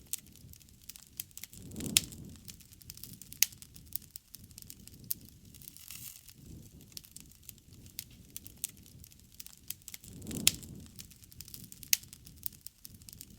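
Wood campfire crackling, with irregular sharp pops, two of them louder about two seconds in and near ten seconds in, over a soft low rush of flame.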